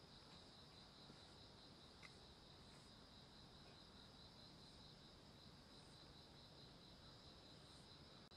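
Faint, steady chirring of crickets: a high, continuous, rapidly pulsing trill.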